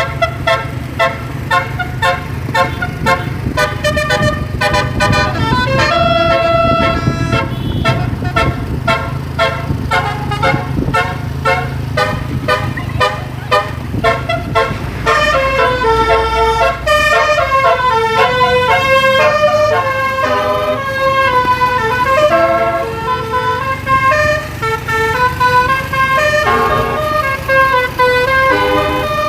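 A bus's basuri horn, the multi-trumpet musical 'telolet' horn, playing melodies note after note over the low, steady running of the bus engine. The first half is quick, short tooting notes; the second half moves into longer notes stepping up and down.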